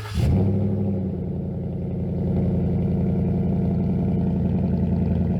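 Portable air compressor starting up and running steadily as it inflates a car tyre, with a rapid pulsing hum.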